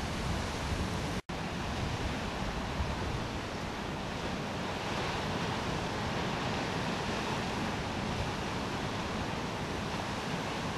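Steady wash of ocean surf breaking, with wind rumbling on the microphone. The sound cuts out for an instant about a second in, then carries on the same.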